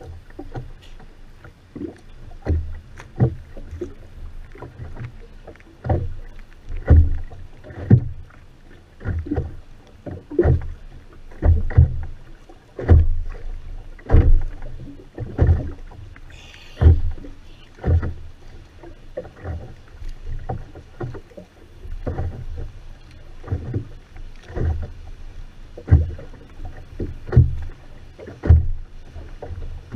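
Oars of Venetian rowing boats working through the water: repeated knocks and splashes, irregular, about one a second.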